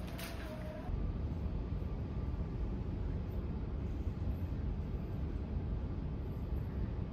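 Steady low rumble of background noise in a large terminal hall, with a brief paper rustle at the very start.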